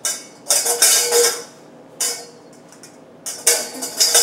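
Empty stainless steel mixing bowl clattering in several bursts as it is swung and knocked about, its metal ringing on a steady tone between and under the clatter.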